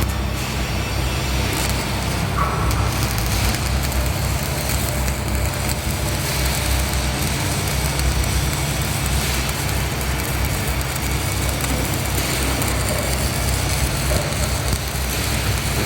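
Stick (SMAW) welding arc crackling and sizzling steadily over a constant low hum.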